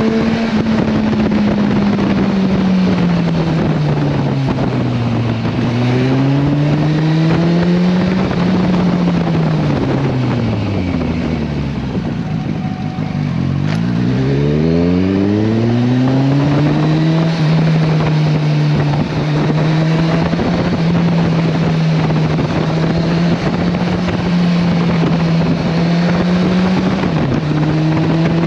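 Kawasaki Versys 1000 inline-four motorcycle engine under way, with wind rushing past. The engine pitch falls and rises through gear changes, drops to low revs about twelve seconds in as the bike slows, then climbs again through quick upshifts and settles at a steady cruise, with one more shift near the end.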